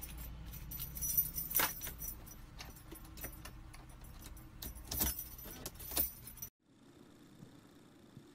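A bunch of car keys on a key ring jangling and clinking as a capuchin monkey handles them and jabs a key at the car's ignition, in scattered metallic jingles that are loudest about a second and a half in and again around five to six seconds in. The sound cuts off abruptly about six and a half seconds in, leaving faint room tone.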